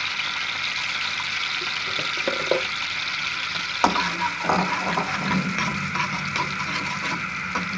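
Crushed garlic sizzling in a little oil in a steel wok, a steady hiss. About four seconds in, a perforated metal spoon starts stirring it, knocking and scraping against the pan.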